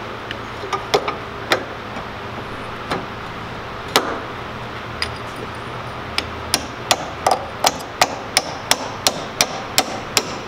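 Hammer tapping metal on metal, working a sheared planet-gear pin out of an MG overdrive planet carrier: a few scattered taps at first, then steady tapping about three times a second from about halfway through.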